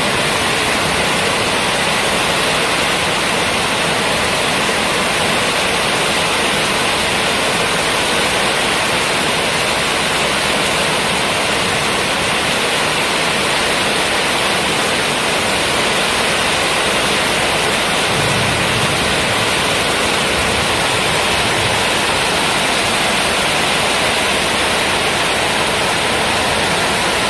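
Heavy tropical downpour: rain pouring steadily and loudly, an even rush of noise with no letup, over a street running with floodwater.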